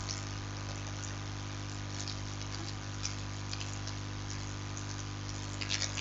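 Steady hiss with a low electrical hum underneath: the recording's background noise, with a few faint ticks.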